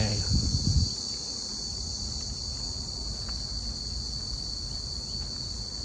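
Steady, high-pitched drone of insects singing in chorus, shrill and unbroken.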